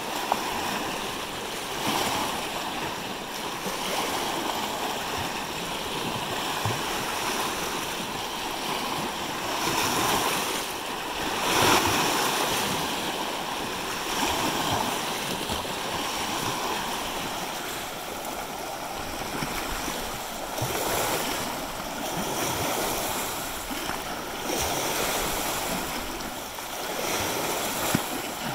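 Small lake waves lapping and washing over flat sandstone ledges at the water's edge: a steady wash of water that swells every few seconds, loudest about twelve seconds in.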